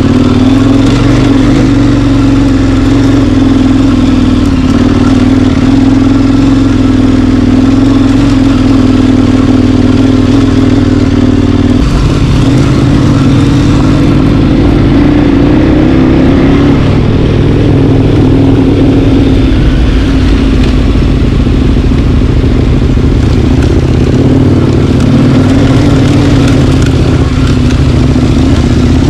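Four-wheel-drive vehicle's engine running steadily under load, with its note shifting about twelve seconds in and again a few times later as the throttle or gear changes.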